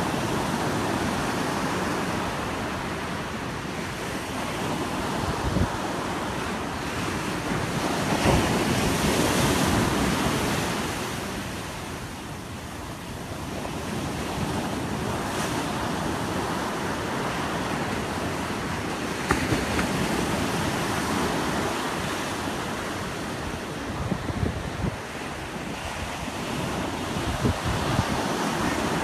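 Ocean surf breaking and washing up the beach in swells, loudest about eight to ten seconds in, with wind rumbling on the microphone.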